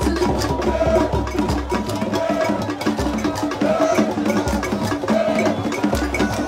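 Upbeat music with a busy, fast percussion beat, a repeating short melodic figure and a bass line that drops out for stretches.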